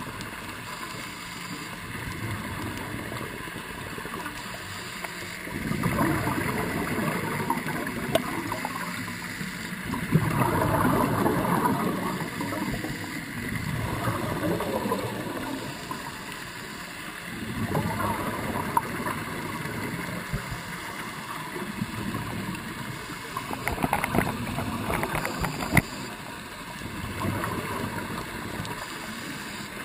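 Scuba diver breathing through a regulator underwater: bursts of exhaled bubbles gurgle and rumble about every four to five seconds, with a quieter steady hiss between breaths.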